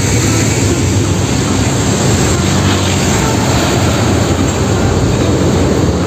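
Loud, steady heavy-vehicle engine noise, a low rumble with a hiss over it, dubbed in as a sound effect for a toy dump truck.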